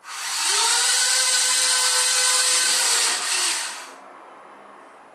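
Small electric gear motors of a DIY Bluetooth-controlled RC car driving, a whine that rises in pitch as they spin up, holds steady for about three seconds, dips once and stops about four seconds in.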